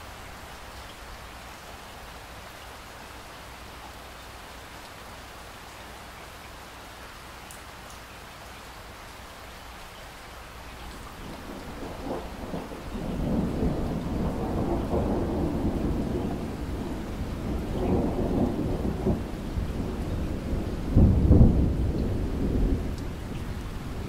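Steady rain falling, then from about halfway through a long rolling rumble of thunder that swells several times, loudest near the end before easing off.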